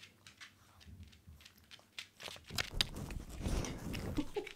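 Rottweiler puppy's claws ticking on a laminate floor. About halfway through, the puppy reaches the camera and nuzzles and bumps against it, giving a close, low rubbing rumble with clicks.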